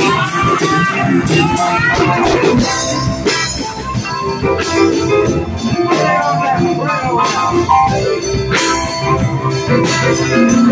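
Live rock band playing: an electric guitar takes the lead over bass guitar and drum kit.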